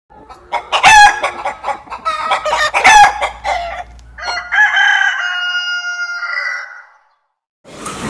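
Chickens clucking and cackling in quick, loud calls for the first few seconds, then a rooster crowing once, a long held crow from about four seconds in that ends before the seventh second.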